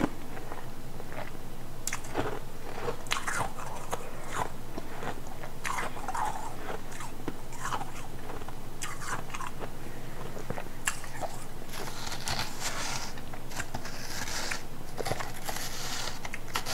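Close-miked crunching and chewing of ice: a string of sharp bites and crunches, turning into denser, near-continuous crunching about two-thirds of the way in.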